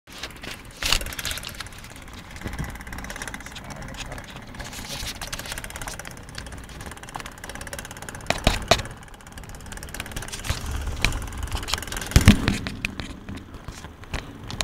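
Street traffic: a vehicle engine running, with a steady rumble of road noise, and two sharp thumps, about eight and twelve seconds in.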